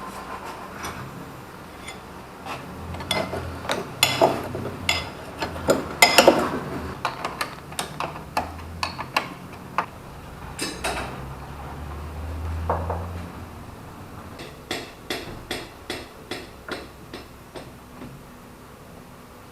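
Metal hand tools and car parts clinking and knocking irregularly during repair work, with a few louder knocks about four and six seconds in. Near the end comes a run of light ticks, about three a second.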